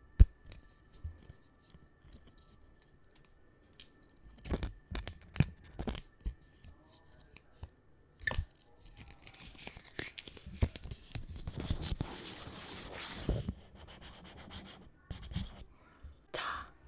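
Clear plastic protective film being peeled off an AirPods charging case right at the microphone: scattered clicks and taps of the case being handled, then a longer stretch of crinkly peeling and tearing about nine seconds in that lasts around four seconds.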